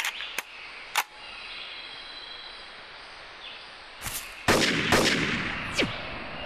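Cartoon hunting rifle being worked: three sharp metal clicks of the bolt in the first second, then about four and a half seconds in two loud gunshots close together, each trailing off. Two short falling whistles follow near the end.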